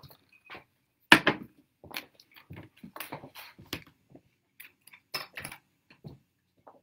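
Irregular clicks, knocks and light clinks of small objects being handled, the loudest a sharp knock about a second in.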